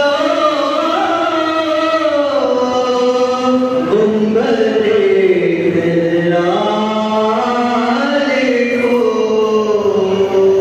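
Devotional chanting: one voice singing a religious recitation in long held notes that slide slowly up and down in pitch.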